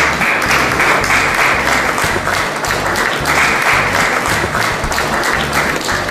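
Audience applauding, a dense patter of many hands clapping that eases slightly near the end.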